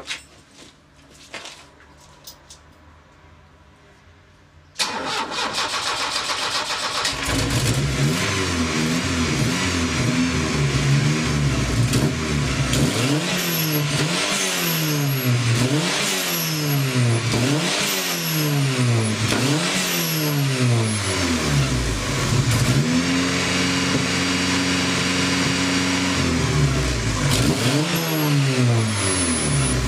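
Vauxhall 2-litre 8-valve turbocharged engine with a T3 turbo, in a classic Mini: a few faint clicks, then it starts about five seconds in. After a short idle it is revved up and down again and again, roughly once every two seconds, held briefly at steady higher revs near the end, then revved once more. A thin turbo whistle rides over the engine.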